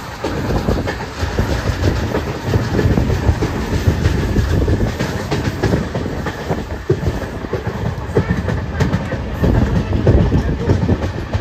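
Passenger train running along the line, heard from on board: a steady loud rumble with the wheels clattering and knocking over the track.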